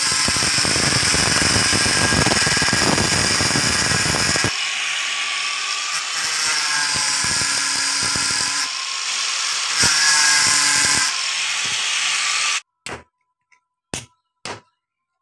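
Hitachi angle grinder with a cutting disc running under load as it cuts through the copper windings of a power-tool armature. It cuts off abruptly near the end, followed by a few sharp hammer taps on the armature.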